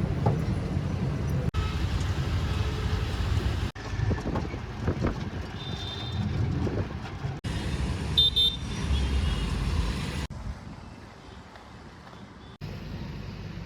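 Road traffic noise with engine rumble and a couple of short horn toots, about 6 and 8 seconds in, in several short clips cut together.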